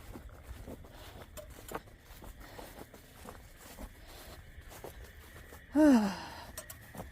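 A woman's sigh about six seconds in: one short voiced breath falling in pitch, the loudest sound here. Before it, faint scattered ticks like footsteps outdoors.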